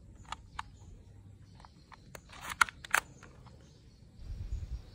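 Scattered light plastic clicks and knocks from a toy pistol being handled, the two sharpest about two and a half and three seconds in, with a low handling rumble near the end.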